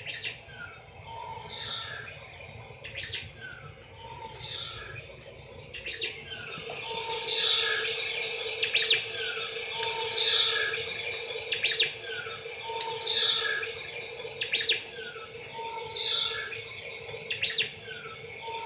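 Bird chirps in a short pattern that repeats exactly about every second and a half, like a looped birdsong sound effect. About six seconds in, a steady hum and hiss join underneath.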